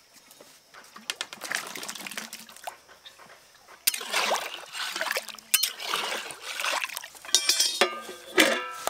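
Potatoes splashing into water in an aluminium pot. Near the end an aluminium lid clanks onto the pot and rings briefly.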